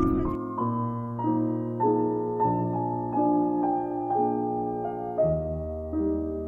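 Slow background piano music: a gentle melody moving a note at a time, about every half second, with a lower bass note coming in about five seconds in.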